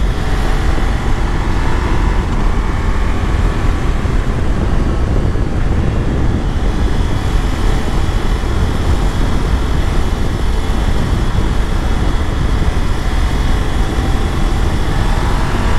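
Steady rush of wind over the microphone of a Ducati Multistrada V4S being ridden at speed, with its V4 engine faint under the wind noise.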